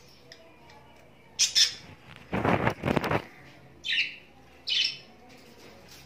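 Budgerigars squawking: a short high call, then a longer harsh, scratchy squawk, then two more short high calls.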